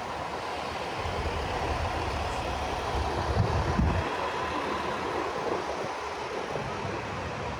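City street traffic: a steady wash of passing vehicles, with a low engine rumble that swells and fades a few times.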